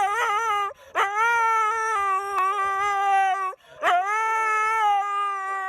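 A dog howling: long, drawn-out howls, each held steadily for two seconds or more, with brief breaks for breath and a wavering warble where the notes begin and end.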